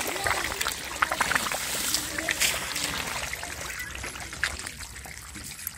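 Shallow muddy water trickling and splashing over churned mud, with scattered small splashes and squelches. It grows quieter toward the end.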